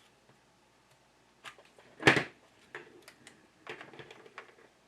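Cable connectors and the cable tester being handled on a bench: a scatter of small clicks and knocks, the loudest a sharp knock about two seconds in.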